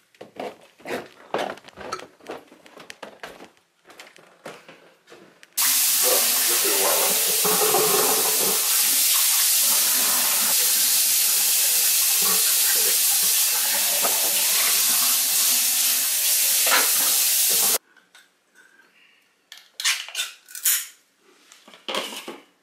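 Kitchen faucet running water into the sink in a steady hiss for about twelve seconds, starting and stopping suddenly. Before and after it come scattered clinks and knocks of handling dishes, the last ones as a bowl is set on the floor.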